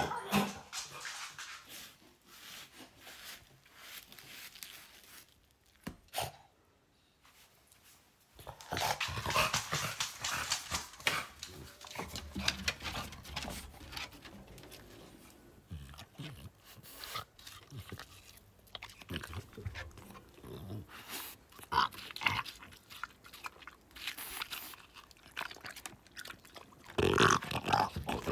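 A French bulldog's noisy breathing and grunts, heard in uneven stretches. Near the end come the wet sounds of the dog licking and chewing a piece of watermelon.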